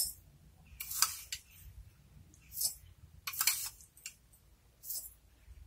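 A metal spoon scooping coarse salt from a container and tipping it into a glass bowl, spoonful by spoonful, for pickle brine. About five short, separate scraping rustles.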